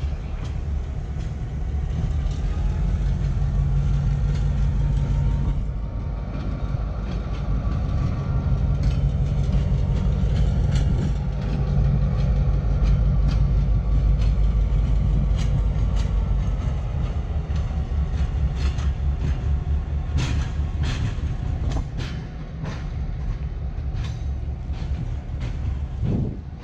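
Freight train of covered hopper cars rolling slowly past behind a diesel switcher locomotive. The engine gives a steady low rumble while the wheels click over the rail joints, and the clicks come thicker near the end.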